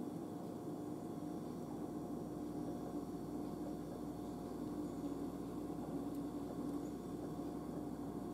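Steady hum with a faint hiss, as from a running appliance, unchanging throughout.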